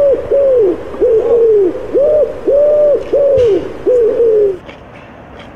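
Loud pigeon-like cooing: a quick run of repeated arched coos, about two a second, that stops a little over four seconds in.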